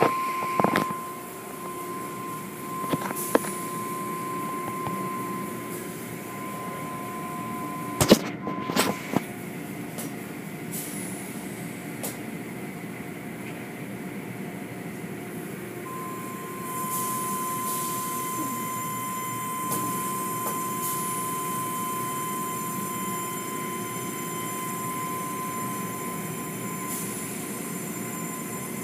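Automatic tunnel car wash machinery running: a steady mechanical drone with a constant whine, and a few sharp clunks about three and eight seconds in. The drone gets a little louder just past the halfway point.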